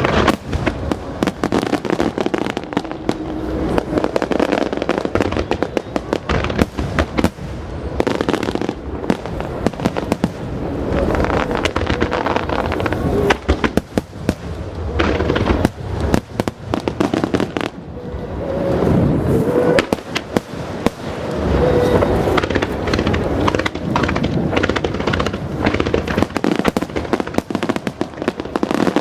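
Aerial fireworks shells bursting in rapid succession, a dense run of booms and crackles with hardly a gap.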